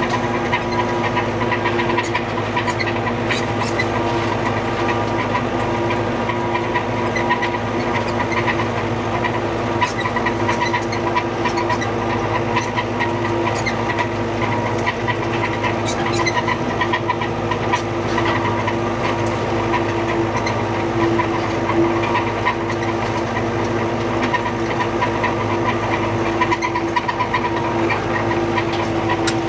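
Old tractor engine running steadily under way, heard from inside the cab, with a constant hum and a continuous light rattling and ticking.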